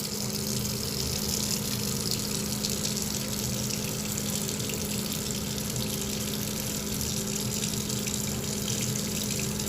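Steady rushing water, like a running tap, with a low steady hum underneath; it cuts in suddenly at the start.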